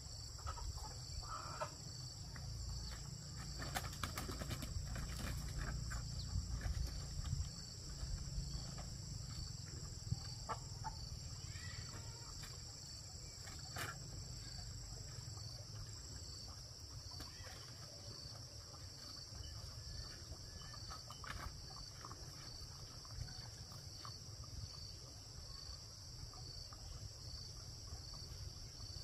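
Steady insect chorus: a shrill high buzz with a regular pulsing note, over a low rumble that is heavier in the first several seconds and scattered light knocks.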